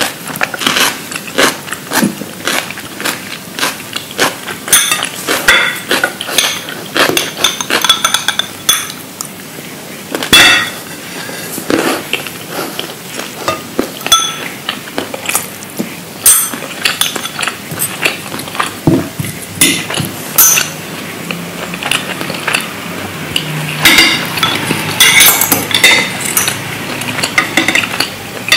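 Close-up eating sounds: cutlery clinking against dishes in quick, irregular taps, some of them ringing briefly, mixed with crunchy chewing.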